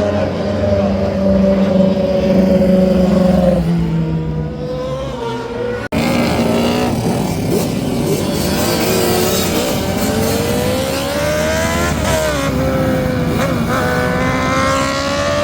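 Racing car engines running hard, their pitch climbing and dropping with throttle and gear changes. An abrupt edit about six seconds in cuts to other cars passing.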